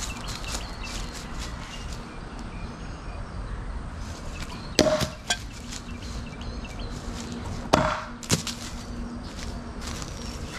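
Two thrown bowie knives hitting a wooden post and failing to stick, about three seconds apart. Each hit is a sharp clack, followed by a lighter knock as the blade drops away.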